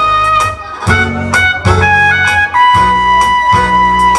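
Music: a song whose melody moves in steps between held notes, over a bass line and regular drum hits.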